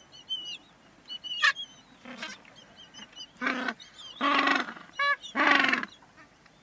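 African penguins braying: a run of hoarse, honking calls that grow longer and louder in the second half, over faint high twittering of small birds.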